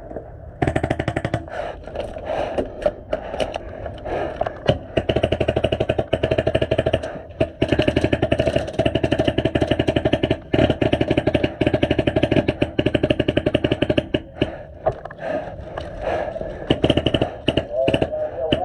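Airsoft rifle firing full-auto in long, rapid strings of shots, with short breaks between them. The firing thins to scattered shots about fourteen seconds in and picks up again near the end.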